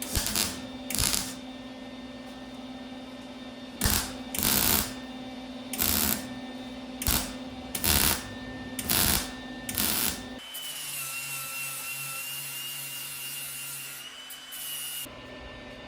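A power tool working on steel tubing in repeated short bursts of about half a second to a second, nine or so. A little after halfway, a tool runs steadily and more quietly with a high whine.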